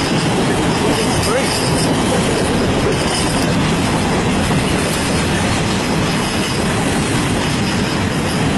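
Freight cars of a CN mixed freight train rolling past at slow speed, a steady rumble and clatter of steel wheels on the rails, with a faint high wheel squeal that comes and goes.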